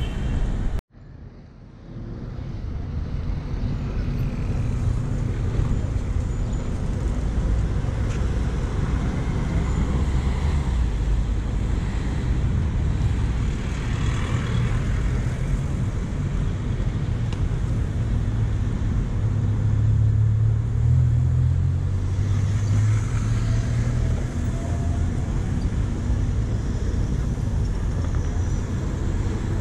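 City street traffic at an intersection: diesel engines of a box truck and buses running and pulling past close by, over a steady low rumble that is heaviest a little past the middle. The sound drops out for about a second near the start.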